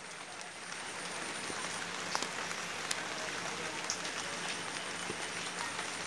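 Light rain falling on standing floodwater and banana leaves: an even hiss with scattered single drop hits.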